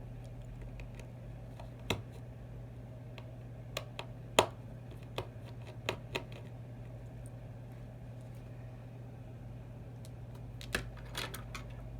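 Scattered light clicks and taps of a small screwdriver and tweezers on an iPhone 6's internals as its screws are removed, the loudest about four seconds in and a quick cluster near the end, over a steady low hum.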